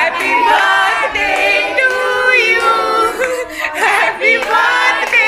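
A small group of people singing together without instruments, with hands clapping along.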